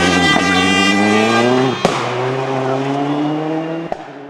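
Rally car accelerating hard. The engine note climbs, breaks with a sharp crack at an upshift a little under two seconds in, climbs again through the next gear, then fades as the car moves away.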